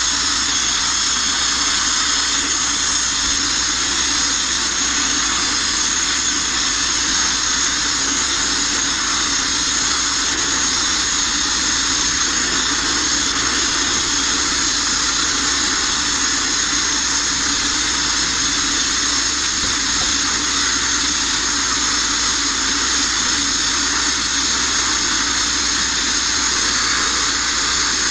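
Abrasive media blast nozzle running continuously: a loud, unbroken hiss of compressed air and grit striking the steel inside a Mk1 Ford Transit van body.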